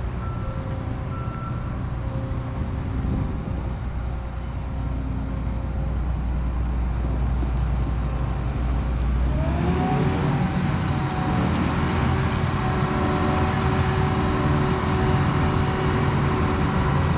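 Combine engine running at a steady idle, with a few short high beeps in the first two seconds. About halfway through, the engine's pitch rises and it settles at a higher, louder speed.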